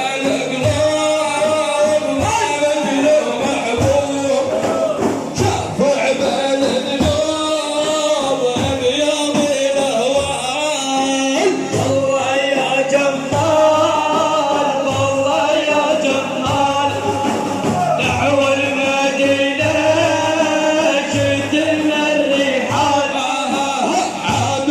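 Male voices singing a manqabah, a devotional song in praise of the Prophet, over steady, regular drum beats.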